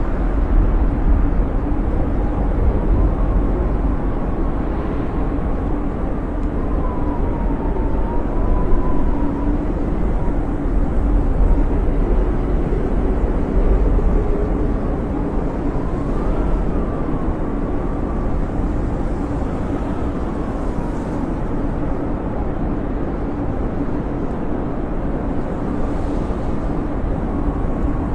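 Snowstorm wind howling steadily, a deep rumble with a faint whistle that rises and falls in pitch.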